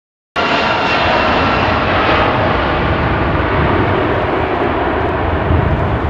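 Boeing 747-400 freighter on final approach with gear down: the steady, loud noise of its four jet engines, with a whine of engine tones on top that fades after a couple of seconds. The sound cuts in suddenly about half a second in.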